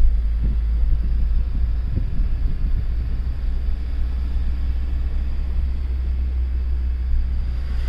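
Steady low rumble of a vehicle driving along a road, heard from the moving vehicle, with road and wind noise over it.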